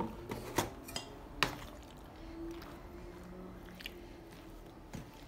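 A utensil and a plastic colander knocking softly as chopped raw liver is tossed in flour. Four sharp clicks come in the first second and a half, then faint rustling with two more single taps.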